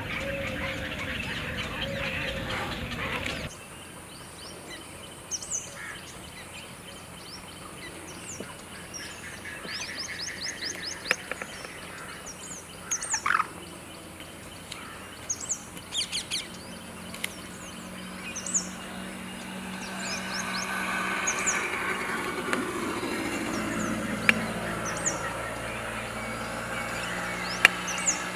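Water birds calling: a dense, louder stretch of calling that cuts off abruptly about three and a half seconds in, then many short, high chirps with occasional lower calls.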